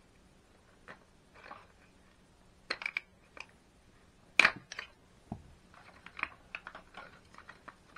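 Hard plastic parts of a vacuum's brush roll assembly clicking and knocking as they are worked loose by hand. Scattered clicks, with one sharp, louder click about four and a half seconds in and a quick run of small clicks near the end.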